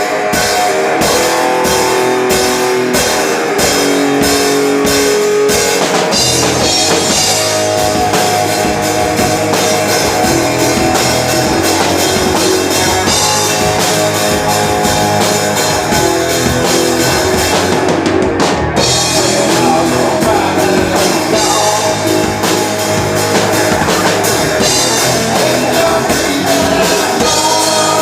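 Live rock band playing an instrumental passage: electric guitars over a steady drum-kit beat.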